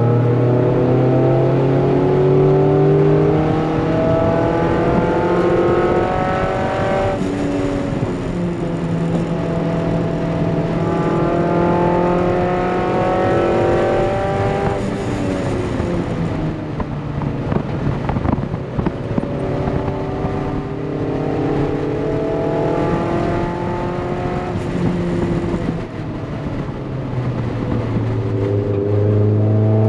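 Mazda MX-5 NC's 2.5-litre engine heard from inside the cabin, climbing in pitch under full throttle several times, with the revs dropping at each shift or lift, and a rougher stretch of road and tyre noise while it slows for a corner.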